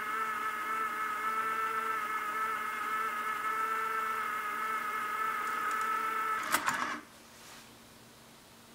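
JVC TD-X401 two-motor cassette deck rewinding a tape at speed: a steady motor-and-tape whine. About six and a half seconds in it stops with a couple of sharp mechanism clicks, as the deck halts at the start of the track.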